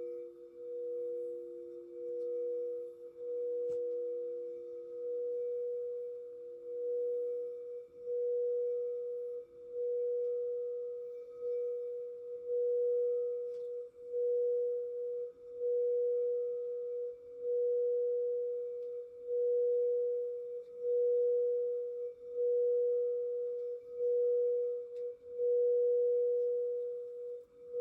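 Crystal singing bowls. One bowl holds a pure mid-pitched tone that swells and dips about every second and a half, while a second, lower bowl's tone fades away over the first several seconds.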